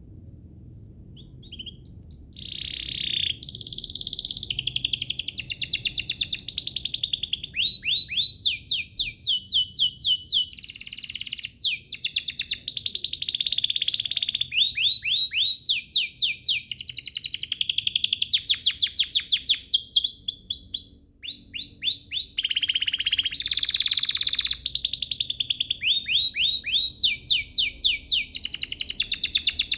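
Domestic canary singing a long, continuous song of fast repeated trills, starting about two seconds in, with a brief break about two-thirds of the way through.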